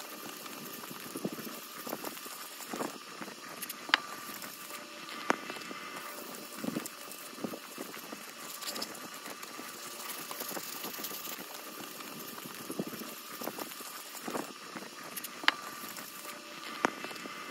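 Fine 1500-grit sandpaper rubbed by hand in circles around a metal brake caliper piston, polishing off rust and haze: a steady soft scratchy hiss with a few sharp ticks scattered through it.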